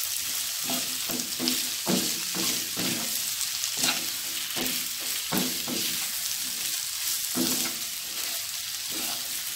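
Green eggplant and scrambled egg sizzling as they are stir-fried in oil in a stone-coated wok, with the wooden spatula scraping and tossing about one to two strokes a second.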